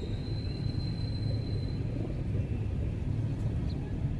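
Steady low rumble, with a thin high whine that fades out about two seconds in.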